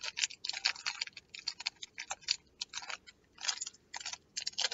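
Small foil snack packet crinkling and tearing as it is bitten and pulled open by hand: a run of irregular crackles, heavier about three and a half seconds in and near the end.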